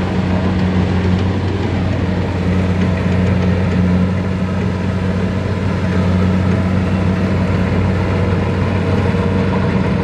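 Kubota DC-70 rice combine harvester's diesel engine running steadily with an even drone.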